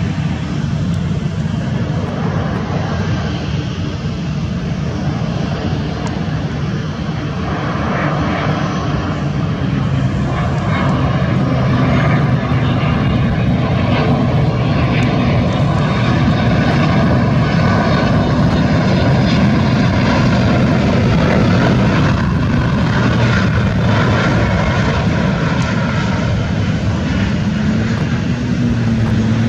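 Boeing 767 twin-engine jet airliner landing: a steady jet engine rumble with faint whining tones that bend slowly in pitch, growing louder about a third of the way in as the aircraft nears, then easing slightly near the end.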